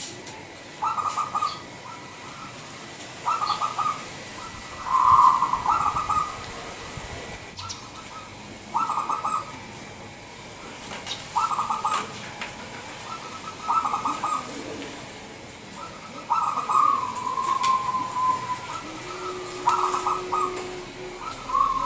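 Local Indonesian zebra dove (perkutut lokal) singing its cooing song in short, clipped phrases, one every two to three seconds.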